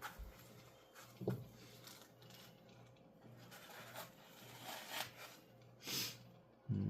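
Faint handling noises of small hardware and tools on a workbench: a few short rustles, scrapes and soft knocks about a second apart, over a low steady hum.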